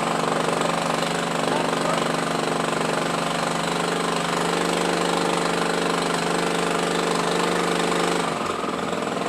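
Petrol tamping rammer (jumping-jack soil compactor) running, its small engine giving a steady note over rapid pounding as it compacts backfill soil. The steady engine note drops away about eight seconds in, leaving a rougher, lower running sound.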